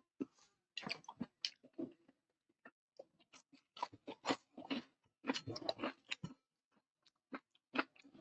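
A person chewing food close to the microphone, with crunchy bites among irregular clicky mouth sounds.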